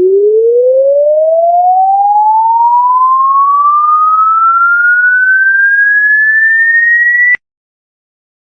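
Electronic sine-wave test tone sweeping steadily upward in pitch from low to high, as in an audio sound check, then cutting off suddenly near the end.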